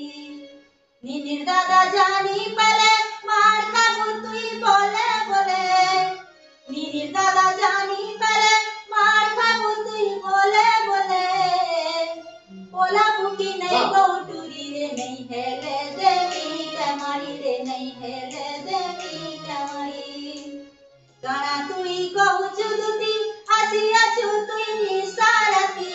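A woman singing a Makar bhet song of the danda nritya tradition, unaccompanied, in long melodic phrases with short breaths between them.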